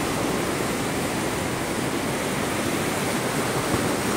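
Ocean surf breaking and washing over shoreline rocks, a steady rush of churning water.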